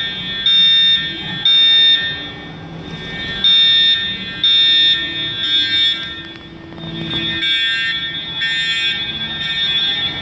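Edwards Integrity fire alarm horns sounding the temporal-3 evacuation signal: three half-second blasts of a high tone, a pause of about a second and a half, then three more.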